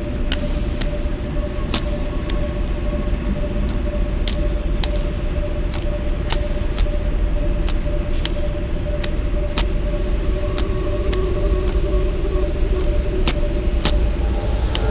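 Machine-room sound design of an animated film: a steady low rumble under a held hum, with irregular sharp clicks and ticks about once or twice a second.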